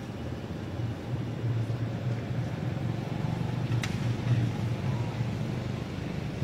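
A steady low engine-like hum under outdoor background noise, with one sharp click about four seconds in.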